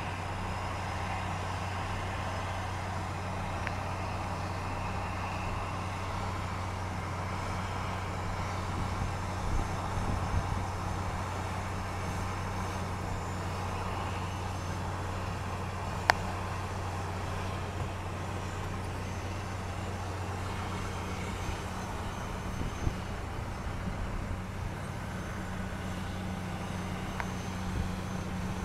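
Steady low engine drone under a hissing wash of noise, with one sharp click about halfway through.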